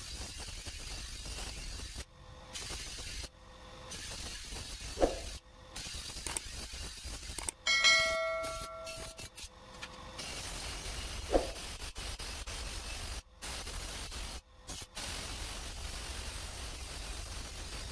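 Steel chaff-cutter blade being sharpened against a grinding wheel with cuts notched into it: a steady grinding hiss, broken off sharply several times. Two short knocks, and about eight seconds in a loud ringing metal clang that dies away over a second or two.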